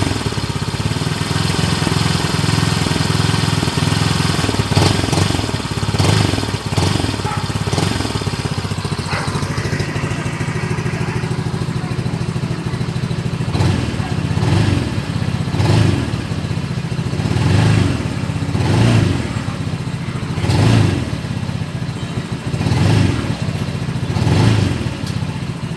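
Rusi Pulse 150 motorcycle engine running, steady at first, then from about halfway blipped with short revs every one to two seconds.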